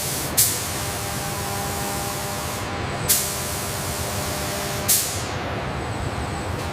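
Steady loud hissing noise, with three sharp cracks: one just after the start, then about three and five seconds in.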